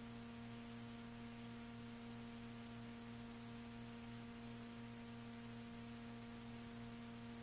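Steady electrical hum with a constant hiss from the recording chain, with no voices or music over it.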